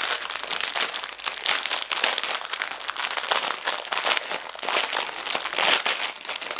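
Clear plastic wrapping crinkling as a bundle of small bags of diamond painting drills is unwrapped and handled, in quick irregular crackles throughout.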